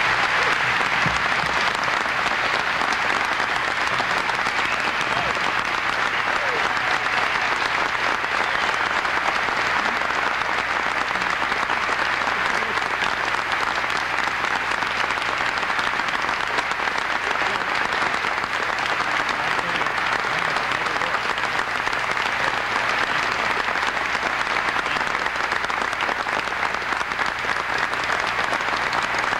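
A large audience applauding steadily, a continuous ovation of many hands clapping at an even level.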